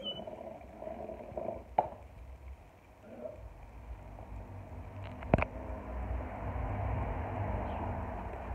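Low, rumbling growls and grumbles from a pack of dogs playing and squabbling, small pinscher-type dogs around an Akita, getting louder in the second half. Two short sharp clicks about two and five seconds in, the second one louder.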